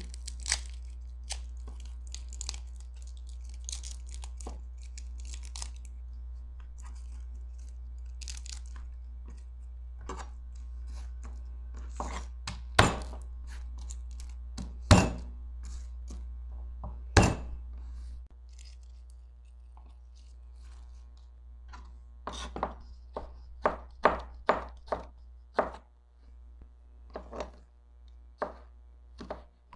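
Garlic cloves being peeled by hand, the papery skins rustling, with a few sharp knocks midway. Then a kitchen knife slices garlic on a plastic cutting board, quick chops about two a second over the last seconds. A low steady hum runs underneath at first and cuts off about two-thirds of the way in.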